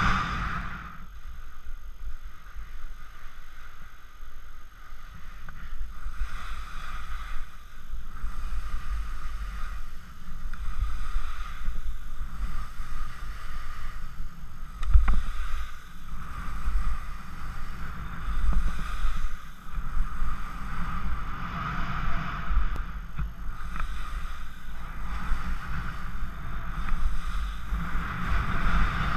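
Skis hissing and scraping over snow on a fast downhill run, swelling and fading with each turn, with wind buffeting the camera's microphone. A single sharp click about halfway through.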